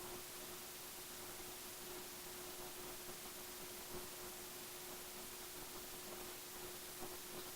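Faint steady hiss with a constant low hum: background noise of the recording, with no clear sound of the repair work.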